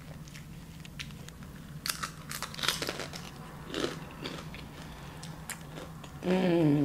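Crunching and crackling of a crispy fried crab rangoon as it is bitten, chewed and broken apart, in a scatter of sharp crackles clustered a couple of seconds in. A short hummed 'mm' from the eater near the end.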